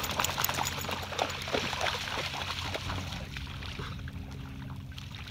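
A dog's paws splashing through shallow water, a quick irregular run of small splashes that thins out and dies away about three seconds in as the dog walks out of the water.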